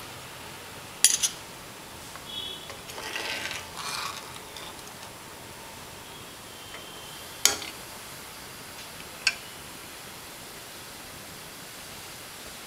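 Pot of tomato rasam boiling on a gas stove: a low steady hiss with a few sharp clicks, about a second in, near 7.5 s and again near 9 s.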